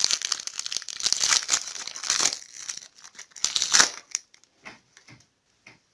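Foil trading-card pack (Panini Megacracks) being torn open, its wrapper crinkling steadily for about two seconds, with a louder crackle a little before four seconds in. Then a few light taps and rustles as the card stack comes out.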